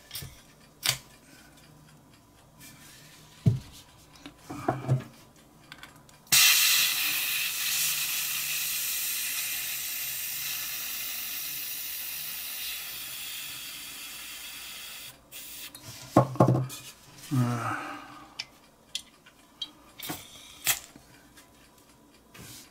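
Butane hissing as it is injected from a refill can through a filler valve newly fitted to an Imco G11 lighter's tank. The steady hiss starts about six seconds in, fades slightly over about nine seconds and cuts off suddenly. Small metallic clicks and taps come from handling the lighter before and after.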